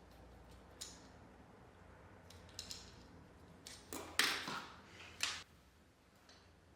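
Faint clicks and short scraping rattles of small hinge parts being handled, with a cluster of them from about four to five and a half seconds in, as the door spring cable guide and old rope string are taken off a dishwasher door hinge.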